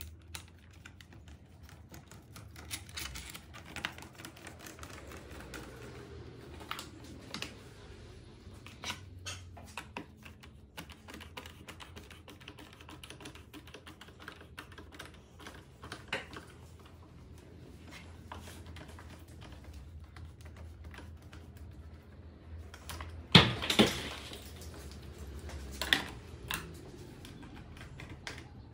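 Scattered small clicks and taps of hand tools and plastic parts as a handguard is fitted and screwed onto an ATV handlebar, with two louder knocks near the end.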